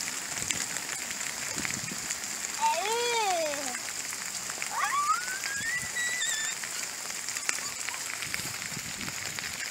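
Steady rain hissing down on the pond and grassy bank. A voice calls out briefly twice, once rising and falling about three seconds in and once climbing in pitch a couple of seconds later.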